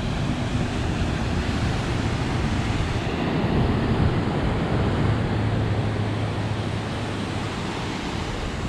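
Ocean surf breaking and washing up the beach below, heard from a clifftop as a steady rushing, with wind buffeting the microphone. A faint low steady hum runs underneath.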